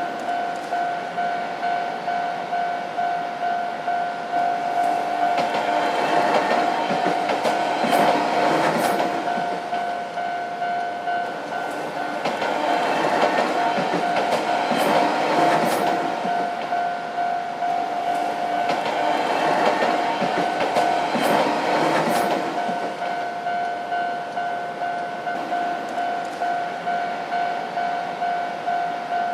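Japanese level-crossing warning bell ringing steadily at about two strokes a second. Enoden train noise swells and fades three times over it, with rail-joint clicking at each pass.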